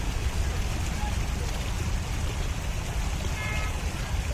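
Steady rush of flowing water with a heavy low rumble underneath. A brief high tone sounds about three and a half seconds in.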